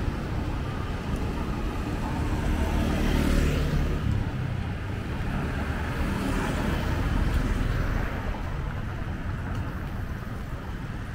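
Street traffic: a steady low rumble of motor scooters and cars, with two vehicles swelling past about three and six seconds in.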